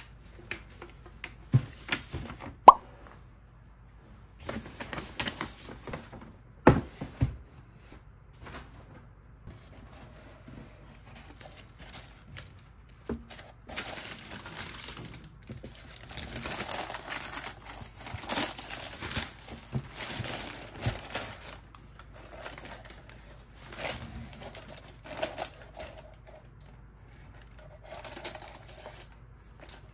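A cardboard shoebox being handled and opened, with a few sharp taps and knocks in the first seconds. About halfway through, tissue paper rustles and crinkles for several seconds as it is pulled back from the sneakers inside.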